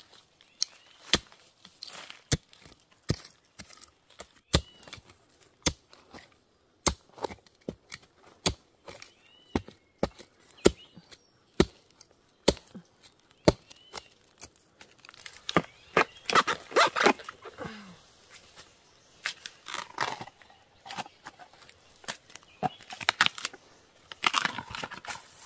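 Repeated sharp chops of a hand tool into soil and the base of a giant bamboo shoot as it is dug out, about one or two strokes a second. From about halfway through come bursts of crackling and tearing as the shoot breaks loose and is handled.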